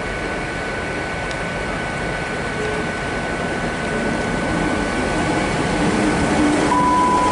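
Class 158 diesel multiple unit running into the platform, its engine and wheel noise growing louder as it draws near. A brief high tone sounds near the end.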